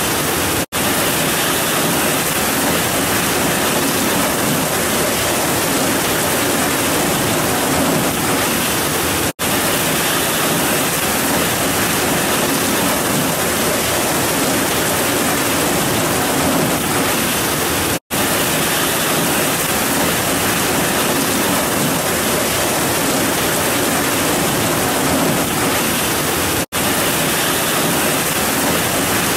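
Heavy rain pouring steadily as a dense, even hiss, cutting out for a split second four times, about every nine seconds.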